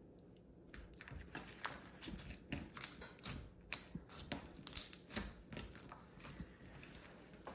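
Clear red slime being squeezed and folded by hand, giving a run of irregular sticky clicks and pops that starts about a second in.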